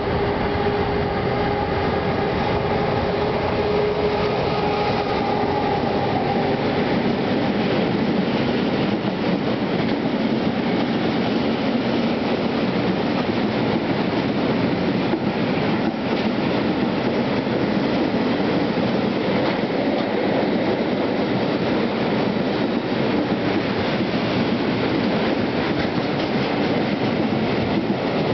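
A long freight train of RAG coal hopper wagons rolling past close by: a loud, steady rumble and clatter of wheels on the rails. A steady whine rides over it for the first six seconds or so.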